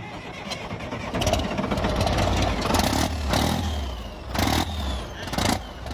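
Diesel engine of a 1978 Caterpillar log skidder, left sitting for many years, starting up and then running unevenly, with several loud surges and clattering knocks.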